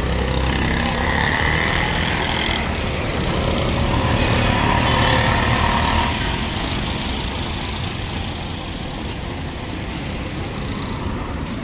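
Street traffic: vehicle engines running and passing, loudest over the first six seconds and then easing off.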